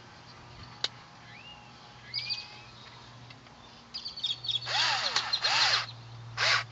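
Bird calls: two short rising chirps, then three loud, harsh calls with an arching pitch near the end, over a steady low hum. A single sharp click comes about a second in.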